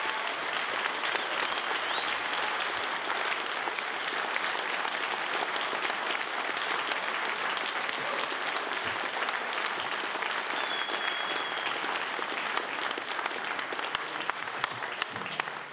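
Audience applauding: a roomful of people clapping steadily, tapering off near the end.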